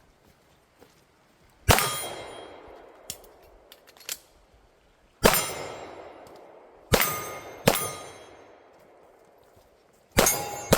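About six gunshots spaced unevenly, a few seconds apart at first and then two close together near the end. Each is followed by a long metallic ring, the sound of steel targets being hit. A few light clicks come between the first shots.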